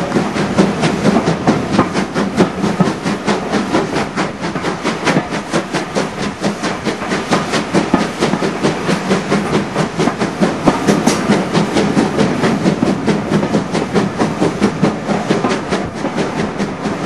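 Steam-hauled train running at speed, heard from an open carriage window. A fast, even beat of locomotive exhaust chuffs rides over the rumble and clatter of the wheels on the rails.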